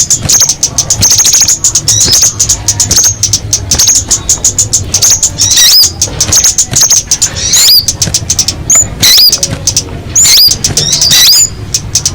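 Calls of the birds known in Vietnamese as tía ô and ốc mít: a fast run of dry ticking notes, with short, sharply hooked chirps coming every second or so in the second half, over a steady low hum.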